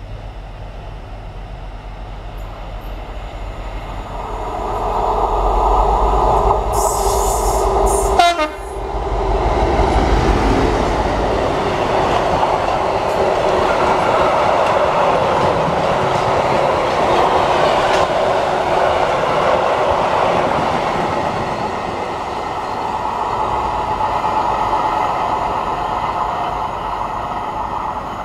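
Class 56 diesel locomotive sounding its two-tone horn as it approaches. The horn peaks about eight seconds in. Then its Ruston-Paxman V16 engine and a long rake of freight wagons run past with steady wheel-on-rail clatter, easing off slightly toward the end.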